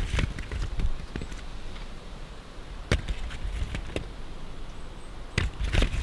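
Hands rummaging through a heap of fallen apples, the apples knocking against each other in scattered short knocks, a pair of them close together near the end.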